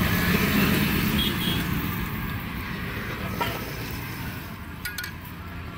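Roadside traffic noise, with a vehicle engine running nearby that fades away over the first few seconds, leaving a steady street hum with a few faint clicks near the end.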